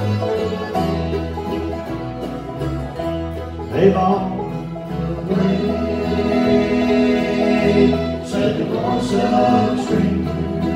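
Live bluegrass band playing, with acoustic guitar and mandolin and voices singing from about halfway on.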